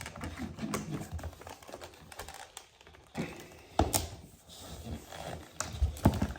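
Hard plastic parts of a Dyson V6 cordless vacuum clicking and knocking as they are pulled apart and handled, in a scattering of short irregular clicks with a sharper knock about four seconds in.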